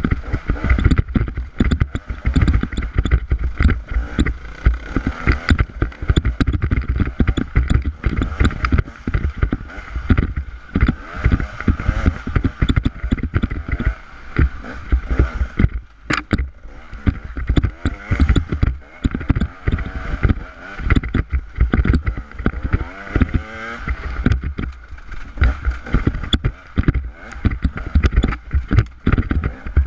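Off-road motorcycle engine running and revving over a rough trail, its pitch rising and falling with the throttle. Heavy wind buffeting on the microphone and frequent knocks from rocks and the bike's jolts run through it.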